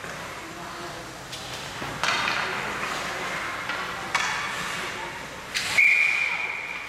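A referee's whistle blown once, a steady high note lasting about a second and a half near the end, ringing in the ice rink. Before it come a few sharp echoing knocks of sticks and puck on the ice, with voices in the arena underneath.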